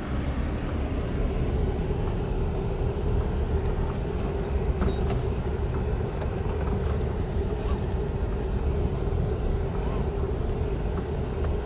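Motor vehicle driving: a steady low engine and road rumble with a constant droning hum.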